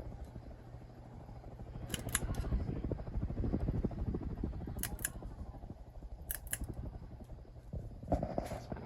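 A 52-inch King of Fans Neon Illusions ceiling fan running, with a steady low hum and an uneven whoosh from the blades. Three pairs of sharp clicks come about 2, 5 and 6.5 seconds in.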